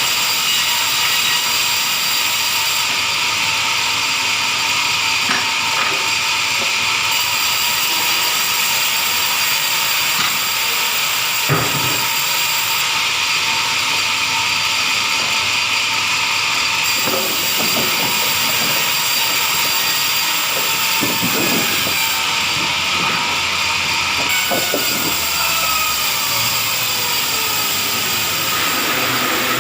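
Sawmill machinery running steadily with a hissing, mechanical drone, a few knocks, and a whine that falls in pitch over the last several seconds.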